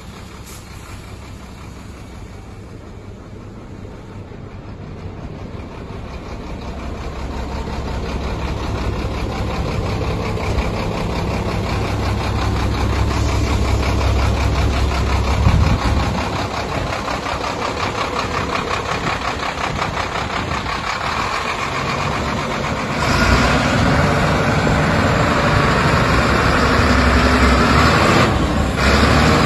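Sinotruk HOWO dump truck's WD615.47 371 hp inline-six turbocharged diesel running steadily, growing louder over the first ten seconds or so. It gets louder again after about twenty-three seconds as the truck pulls away.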